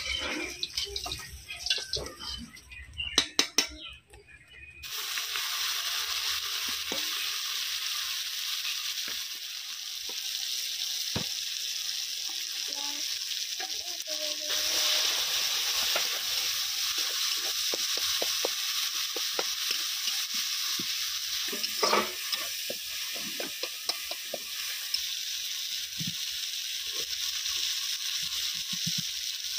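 Food frying and sizzling in a pan, stirred with a spatula that scrapes now and then. A few knocks and clatter of utensils come first, for about the first five seconds, before the steady sizzle sets in.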